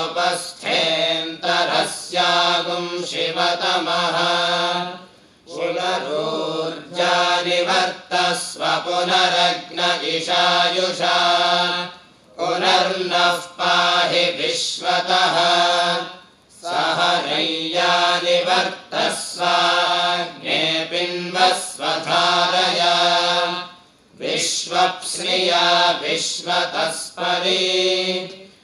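A group of young men's voices chanting Vedic Sanskrit mantras in recitation style. The chant comes in phrases of a few seconds, with short breath pauses between them.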